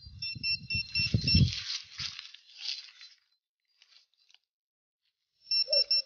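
Trowel digging and scraping in soil, with crunching strokes, while a handheld metal-detecting pinpointer beeps in short, fast repeated tones on a target. The digging and beeping stop about a second and a half in, and the pinpointer beeps again briefly near the end.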